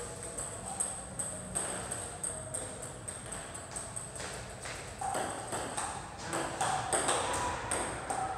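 Table tennis balls striking bats and tables: a steady run of sharp ticks, about two or three a second.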